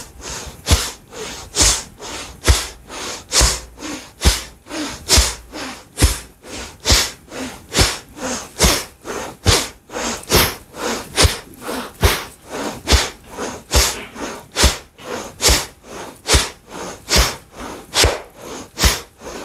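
A person exhaling sharply and rhythmically, about one forceful breath out a second, each timed with a tap during a breathing and tapping exercise. Soft thumps from the tapping and leg kicks keep the same beat.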